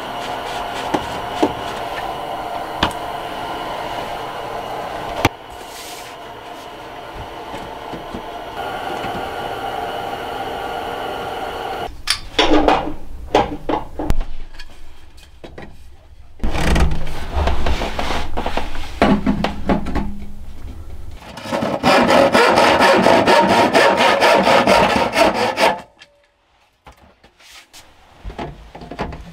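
Hand-tool work on wood and plastic drain pipe: rubbing and scraping noise with scattered knocks and clicks, a few heavy low thumps a little past halfway, and a loud, steady noisy stretch about three-quarters of the way through.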